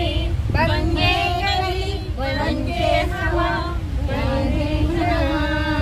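Women singing a song with long held notes, over the steady low rumble of the moving train.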